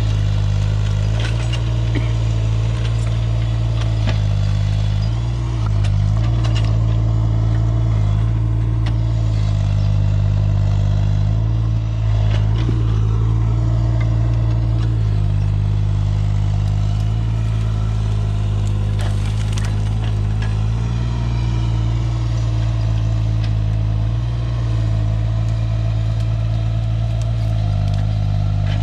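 Engine of a piece of compact earthmoving equipment running steadily at a constant speed, with scattered short knocks and scrapes from the work.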